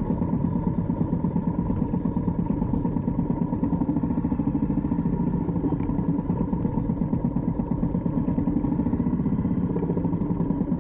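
Motorbike engine running steadily at low speed, a fast even pulse, while the bike is ridden slowly.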